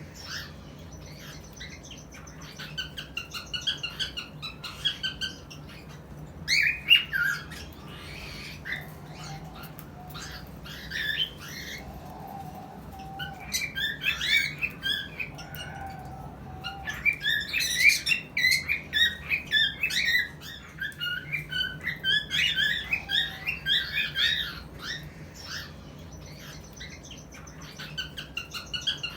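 Cockatiels giving mating calls: bursts of quick, rising and falling chirps and whistles, with short pauses between the bursts.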